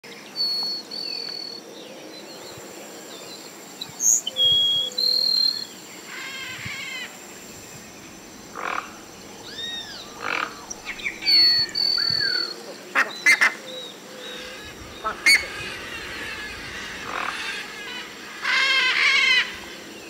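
Wild animal calls, mostly birds, one after another: thin steady high whistles, quick runs of repeated notes, short glides and a few sharp clicks.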